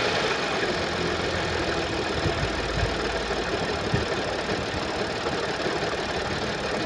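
Audi S4 B8's 3.0-litre supercharged V6 idling with a knocking noise and a few low thumps between two and four seconds in: the sign of a timing chain that has jumped teeth.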